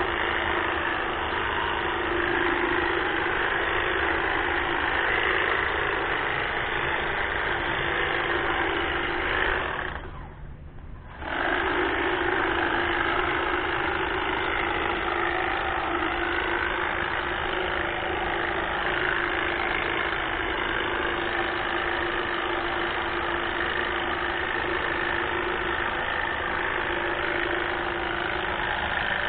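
Greenworks battery-powered hedge trimmer running steadily with a steady buzzing hum as its blades reciprocate while trimming azalea shrubs. It stops for about a second, some ten seconds in, then starts again.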